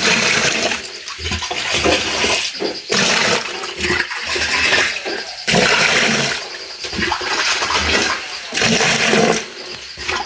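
Water splashing and pouring in repeated surges, each about a second long.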